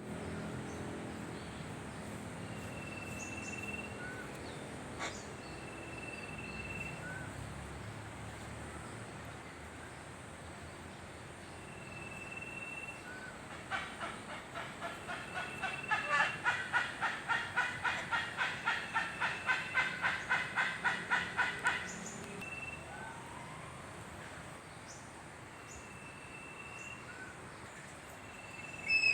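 Birds calling: a long, steady whistled note repeated every few seconds with small chirps between, and in the middle a rapid rhythmic series of calls, about three a second, that grows louder and then stops.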